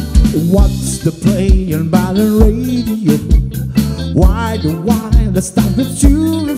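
Live band playing a song: a male singer sings the melody over electric guitar, bass guitar, keyboard and a drum kit keeping a steady beat.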